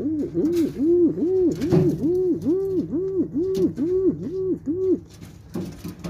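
Pigeon cooing: a rapid run of about a dozen short arched coos, roughly three a second, that stops about five seconds in.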